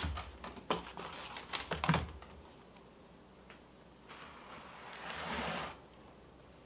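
A few light taps and thumps from a cat's paws and a hemp rope on a tatami mat. Then, about four seconds in, a rough scraping rustle lasting under two seconds as a bundled chunk of hemp rope is rubbed and set down on the tatami.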